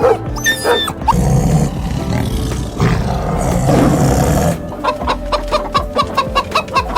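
Chickens clucking in a rapid run of short, repeated calls, about three or four a second, starting a little past the middle. Before that there is a harsh, noisy stretch of a few seconds, with a couple of short whines at the very start.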